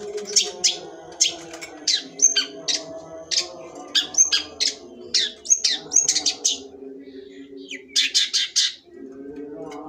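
Long-tailed shrike (cendet) singing in rapid bursts of sharp chirps and harsh notes. There is a short pause after about six and a half seconds, then one last quick burst before the song stops near the end.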